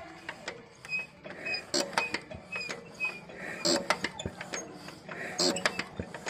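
Scattered light metallic clicks and creaks as a hand works the fuel injection pump linkage of a stopped Lister 10 HP diesel engine, checking it after the air has been bled from the pump.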